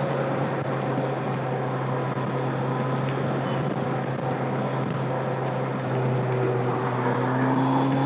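2025 Kawasaki Z900's inline-four engine through its stock exhaust, running at steady highway speed under heavy wind and road rush. Near the end the engine pulls a little harder and its pitch rises slightly.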